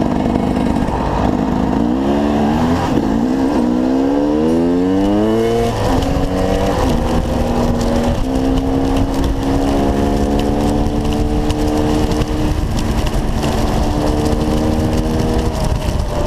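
Dirt bike engine revving up, its pitch climbing over a few seconds. It then runs steadily at a higher pitch with a couple of small shifts, easing off near the end.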